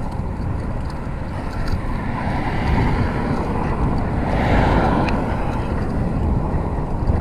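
Wind rushing over an action camera's microphone and tyre noise from a fixed-gear bike ridden along a street, a steady rumbling rush that swells for a couple of seconds in the middle.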